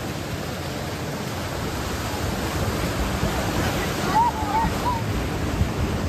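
Water rushing and splashing around a raft on a river rapids ride, a steady noisy wash. A few short high voice sounds come in about four to five seconds in.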